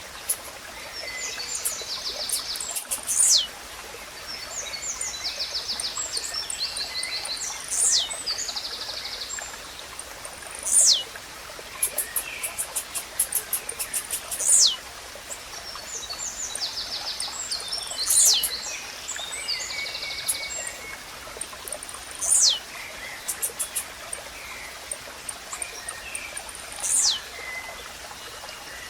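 Blue-black grassquit (tizil) singing its short, sharp song, which sweeps steeply down in pitch and repeats seven times, every three to four seconds. Other small birds trill and chatter softly between the songs over a steady hiss of running water.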